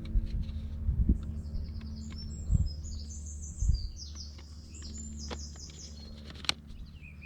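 A small songbird twittering in quick runs of high notes through the middle few seconds, over a steady low hum, with a sharp click near the end.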